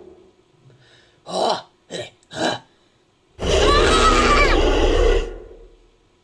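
Gorilla-like creature vocal sound effect: three short vocal bursts in quick succession, then about a second later one long, loud call lasting roughly two seconds with a shifting pitch.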